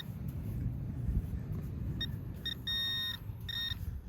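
Metal detector beeping on a buried coin target as it is pinpointed. The beeps start about two seconds in: two short high beeps, then two longer tones, over a low steady rumble.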